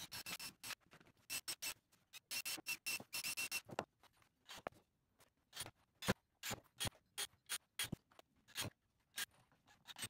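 A choppy series of short clicks and knocks with brief bursts of a cordless drill, as a small pine box is drilled and assembled. The sounds come in quick clusters over the first few seconds, then as single clicks spaced about half a second apart.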